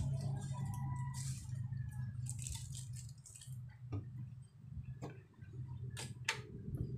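Scattered light clicks and taps, the strongest a pair of clicks about six seconds in as the front power button of an old CRT television is pressed, over a steady low hum.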